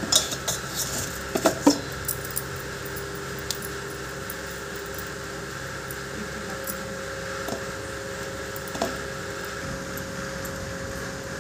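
Glass bangles clinking and hands knocking against a steel bowl as soft dough is pressed, with several sharp clinks in the first two seconds. After that there is a steady hum, with a few faint clicks as the dough is pinched into balls.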